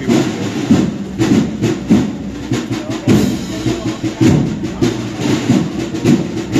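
Processional wind band playing a Holy Week march, with steady drum beats running through it.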